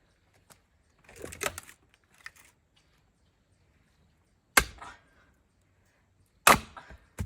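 Axe splitting oak firewood: two sharp, loud strikes about two seconds apart, with a softer, scrappier knock about a second in.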